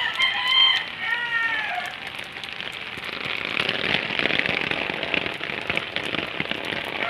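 Steady rain falling and pattering on leaves and pavement. In the first two seconds a rooster crows in two parts, the second part falling in pitch.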